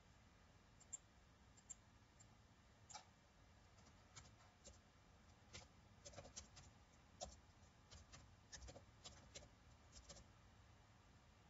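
Faint computer keyboard typing: irregular key clicks for several seconds, after a few single clicks at the start.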